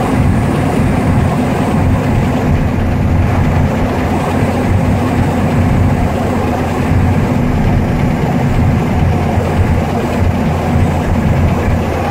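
Truck driving at road speed: a steady engine drone under tyre and road noise.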